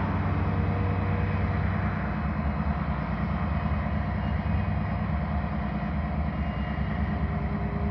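Diesel locomotive of an approaching train heard at a distance: a steady, unbroken low engine rumble and hum.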